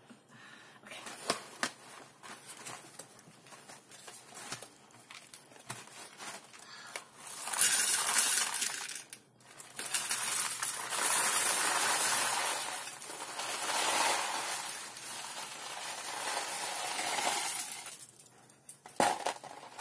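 Popcorn poured from a cardboard box into a glass bowl: a loud, dense rattling rush of pieces hitting the glass and each other. It starts about seven seconds in and comes in surges for about ten seconds, after a stretch of scattered light taps and clicks.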